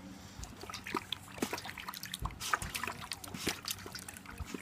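Springer spaniel puppy lapping water from a stainless steel bowl: a quick, irregular run of wet laps and splashes as it drinks messily.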